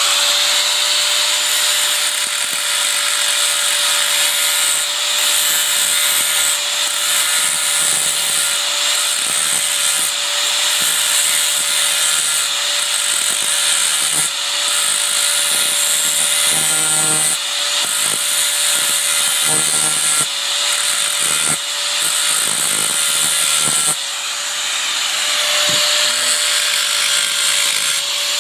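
Angle grinder running steadily with its abrasive disc grinding down a silver bar: a constant motor whine under a rough, hissing grind that waxes and wanes as the disc is pressed onto the metal.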